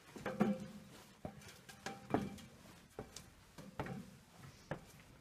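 Boots knocking on the rungs of a rusty metal ladder as people climb it: a short clank about once a second, six in all.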